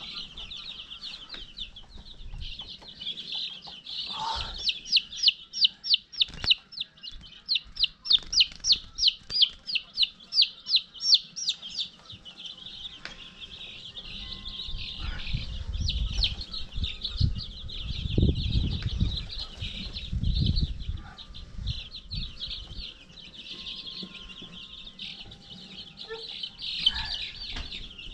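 A brood of chicks peeping steadily, with one chick giving loud, rapid distress peeps, about three a second, for several seconds near the start while it is held and handled. A low rumbling noise runs through the middle stretch.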